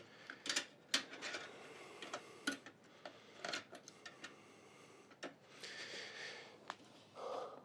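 Light, scattered clicks and taps of a PCIe wireless card being handled and fitted into a motherboard slot inside a PC case, with a brief rustle or scrape about six seconds in.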